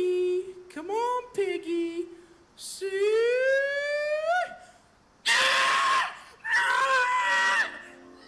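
A man's voice imitating a pig's squeal into a microphone: short wavering cries and a long rising squeal, then two loud, harsh squeals about five and six and a half seconds in.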